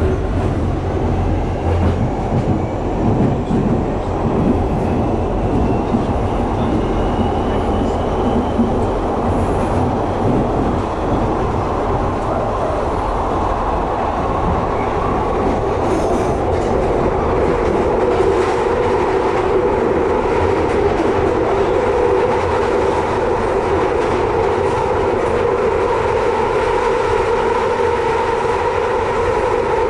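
London Underground Victoria line train heard from inside the carriage while running through the tunnel: a steady, loud rumble and roar of wheels on rail. A droning tone settles in about halfway through.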